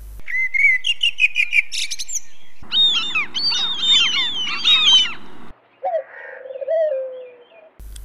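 Bird calls in three spliced stretches: first a quick run of repeated chirps, then about a second and a half into the sound a dense chorus of many overlapping, falling chirps from a flock, which cuts off suddenly, then lower, softer calls near the end.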